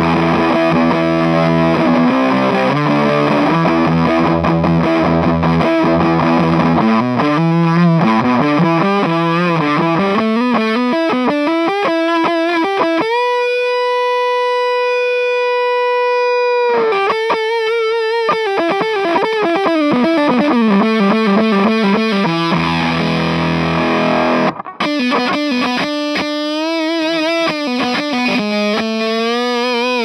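Electric guitar played through an EarthQuaker Devices Park Fuzz Sound pedal, very raw fuzz distortion. It starts with heavy chords, moves to single-note lines with one long sustaining note about halfway through, returns briefly to chords, then plays bending single-note phrases.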